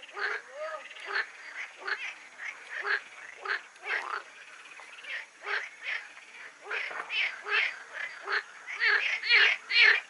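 A run of short, loud animal calls, about two a second, coming closer together and louder toward the end.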